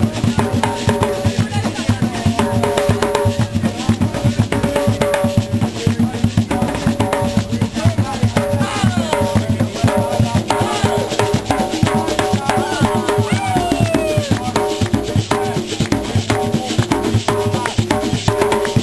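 A group of djembe hand drums played together in a dense, fast rhythm.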